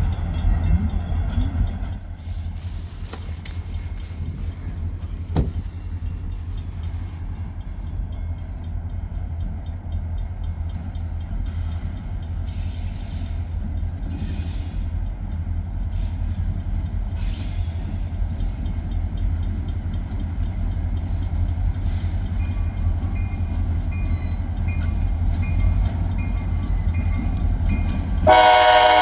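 Freight train rolling by with a steady low rumble. Near the end a train horn sounds loudly for about a second.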